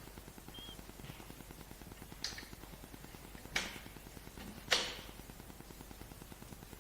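Three sharp clicks, each more than a second apart and the last the loudest, from hand tools and parts knocking while screws are tightened on an ultrasound machine's bracket.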